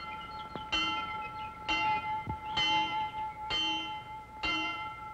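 A school bell tolling slowly, struck five times about a second apart, each stroke ringing on into the next.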